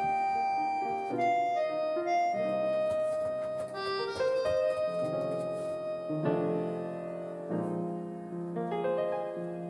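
Background piano music: a gentle melody of held notes and chords.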